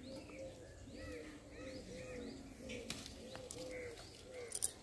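Doves cooing in a run of short, repeated low notes, a few a second, with small birds chirping higher above them.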